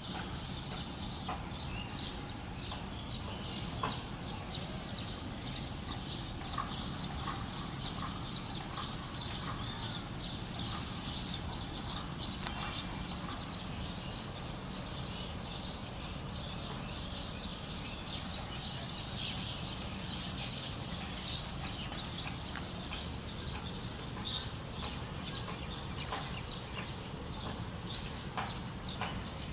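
Birds chirping in a stream of short, high calls repeated several times a second, over a steady background hiss.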